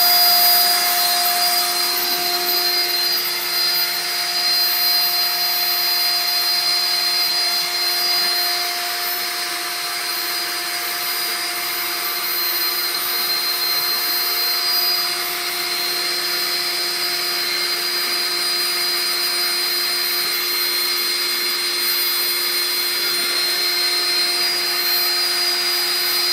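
A steady mechanical whir and hiss with a few constant tones, unchanging throughout, such as a running motor or fan makes.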